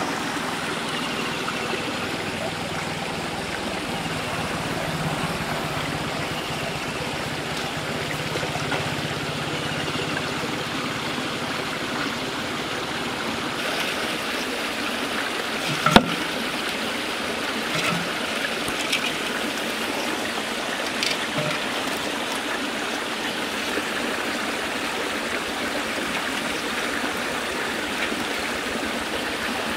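Water pouring from concrete culvert pipes into a shallow canal, a steady rushing splash. A single sharp knock about halfway through, then a few fainter clicks.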